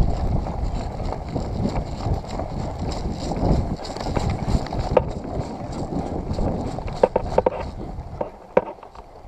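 Wind and handling noise buffeting the microphone as a player moves off, with a few sharp clicks about five seconds in, in a quick cluster around seven seconds, and once more near the end.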